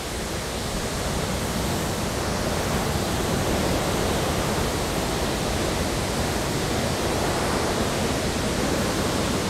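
Rough sea rushing and churning alongside a container ship's hull: a steady rushing noise that swells up over the first second, then holds.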